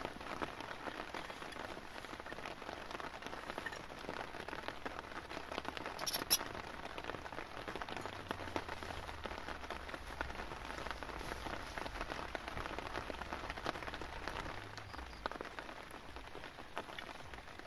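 Steady rain pattering on a nylon tent flysheet, an even hiss of many small drop ticks, with one sharp click about six seconds in.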